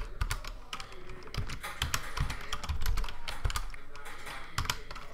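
Laptop keyboard keys clicking in quick, irregular taps as shortcut keys are pressed.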